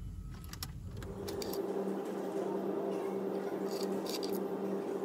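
Ford Focus 1.6 petrol engine idling low, with a few key clicks at the ignition about half a second in. After about a second and a half the rumble gives way to a steady hum with a faint even tone.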